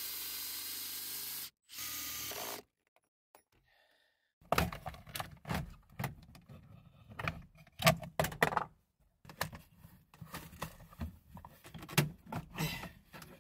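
A steady hiss that cuts off suddenly, a short second burst of it, then after a pause a run of irregular knocks, clicks and rattles as hand tools and loose parts are handled during work on the car's gear shifter.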